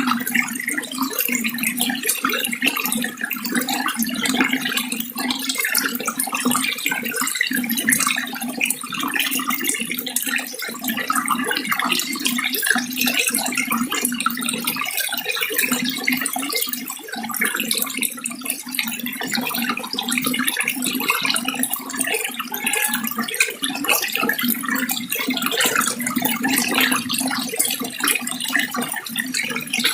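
Continuous running water splashing steadily, a dense even rush with constant small fluctuations and no pauses.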